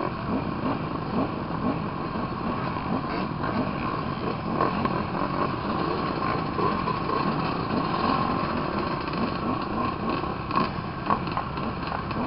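A group of motocross bikes idling together, with many short overlapping throttle blips rising and falling in pitch.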